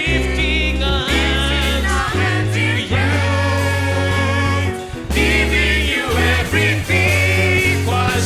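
Gospel worship music: several voices singing over a band, with sustained bass notes changing every second or so.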